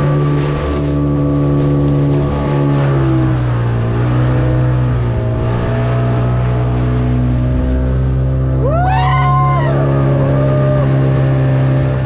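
Yamaha outboard motor running at speed, pushing a small boat through the sea with water rushing and spraying past. Its pitch dips briefly about three seconds in, then holds steady.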